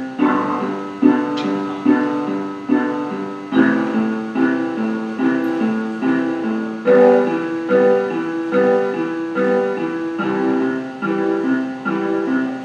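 A MIDI score played back by notation software: a broken-chord (arpeggio) pattern, one note at a time in an even rhythm, moving through G, A minor, E minor and C.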